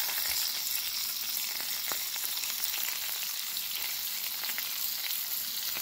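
Pork butt steaks sizzling on a Blackstone flat-top griddle running hotter than needed, as barbecue sauce is squeezed onto them: a steady hiss dotted with small crackles.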